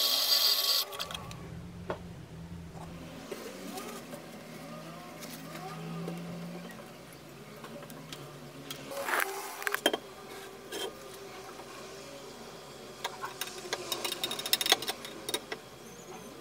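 A steady low hum that stops about two thirds of the way in, followed by scattered light clicks and knocks of a steel blade being dipped into and handled around plastic tubs of ferric chloride etchant and water.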